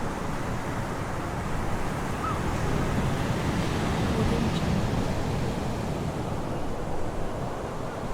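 Ocean surf washing steadily onto a beach. A seagull gives a short call about two seconds in, and there are faint brief calls later on.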